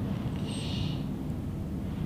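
Sleeping panda snoring, with one short hissing breath about half a second in, over a steady low rumble.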